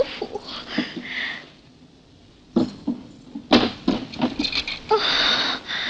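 A sudden hit, then several sharp knocks and clicks from about two and a half to four and a half seconds in, and a hissing swish near the end.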